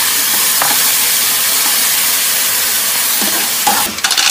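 Oil sizzling in a hot wok as chilies and aromatics are stir-fried, with a metal spatula scraping the pan. Near the end a bowl of Manila clams is tipped in, the shells clattering into the wok.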